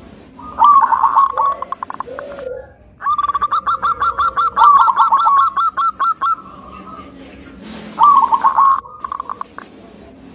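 Zebra dove (perkutut) singing: bursts of rapid, rhythmic staccato cooing notes. The longest run lasts about three seconds, starting about three seconds in, with a few lower coos early on.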